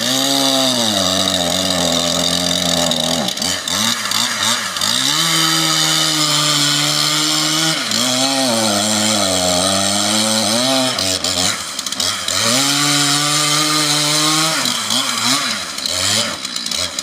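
Two-stroke chainsaw cutting poplar wood at high revs. Its engine note holds steady for stretches, then drops and climbs back again several times as the throttle is eased and reopened.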